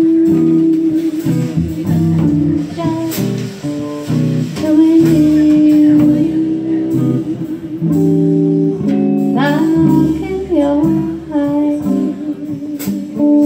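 Live jazz combo playing: female voice singing over electric guitar, upright bass and a drum kit with cymbal strikes.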